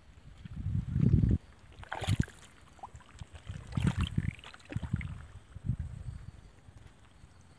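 Hands sloshing and squelching through shallow muddy water and mud in several irregular bursts, with a few sharper splashes.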